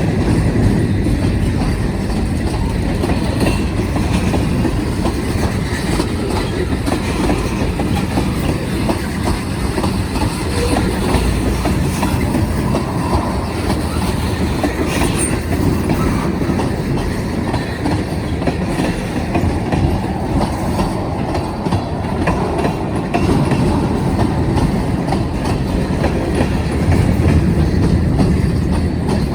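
Freight cars of a BNSF manifest freight train rolling past, a steady rumble with the clickety-clack of wheels over the rail joints.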